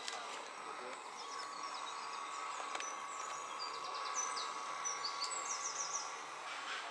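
Songbirds chirping and singing in short repeated phrases over steady outdoor background noise, with a faint steady tone in the middle of the stretch.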